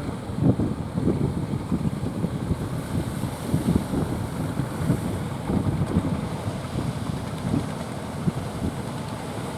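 Strong wind buffeting the microphone in uneven low gusts, easing toward the end, over a steady rush of sea surf.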